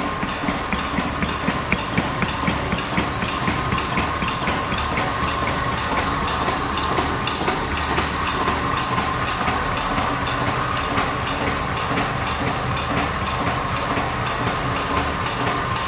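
ONDA UV flatbed label printing machine with die cutting running, its flatbed press clattering in a regular rhythm of about two to three strokes a second over a steady mechanical hum and whine.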